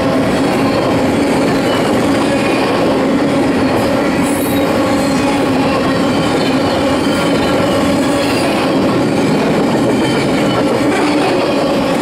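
Double-stack intermodal well cars rolling past at speed: a loud, steady rush of steel wheels on rail with a steady tone running under it, and a brief high squeal about four seconds in.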